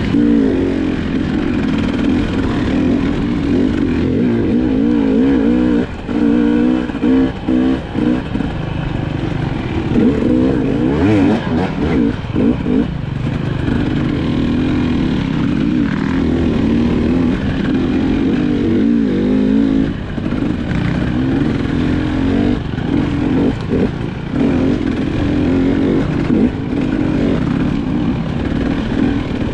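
GasGas EC300 two-stroke enduro dirt bike engine being ridden through mud, its pitch constantly rising and falling as the throttle is worked, with a few short knocks along the way.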